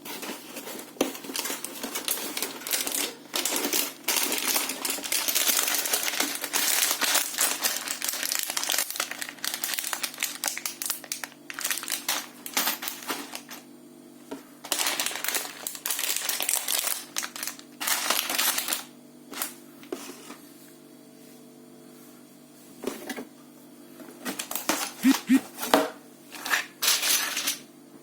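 Plastic packaging crinkling as it is handled and opened for a long stretch, then sharp separate clicks and rattles of small plastic mosaic pieces near the end.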